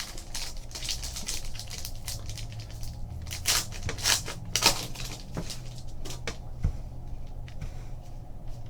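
Trading cards and pack wrappers being handled: a run of short crinkles and snaps, thickest a little past the middle.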